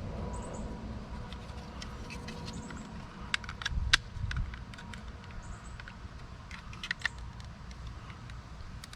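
Small hard-plastic clicks and taps from the broken door handle pieces being handled and fitted together, clustered in two short bursts a few seconds apart, over a low steady background rumble.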